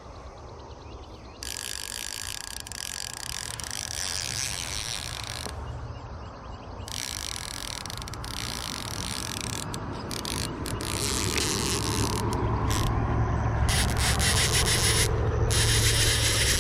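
Fishing reel ratcheting in stretches of rapid clicks with short breaks, while a fish is on or about to be hooked. A low rumble grows louder underneath in the second half.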